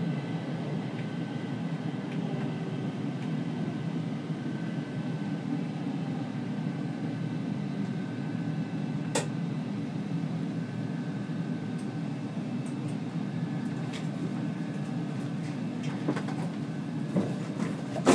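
C20 metro train running along the track: a steady low rumble with faint steady higher tones, a single sharp click about halfway through and a few clicks near the end.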